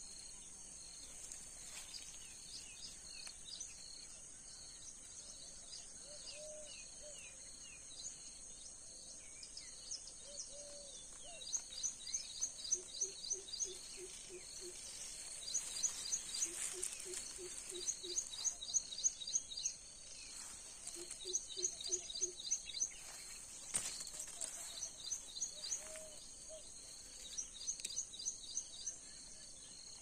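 Wild birds calling over a steady high insect hum. From about halfway in, one bird repeats short runs of quick high chirps, and a low hooting call comes in runs of five or six notes several times.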